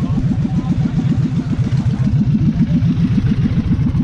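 A vehicle engine idling close by, with a rapid, even low pulse.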